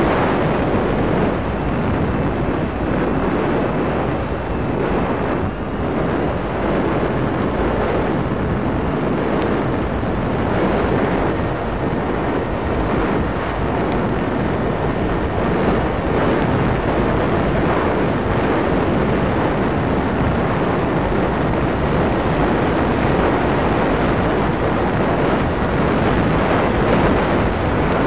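Steady rush of wind and electric motor-driven propeller noise picked up by the onboard microphone of a model plane in powered flight.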